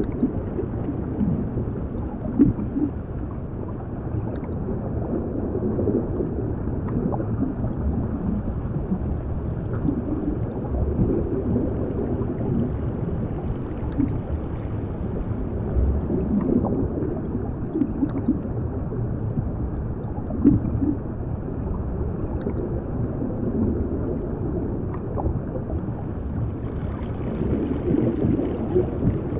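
Underwater ambience: a steady, muffled low rumble with scattered bubbling and gurgles, as heard from beneath the water's surface.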